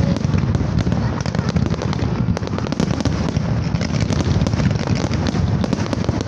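Fireworks display going off: rapid, overlapping bangs and crackling from many shells at once, with no pause.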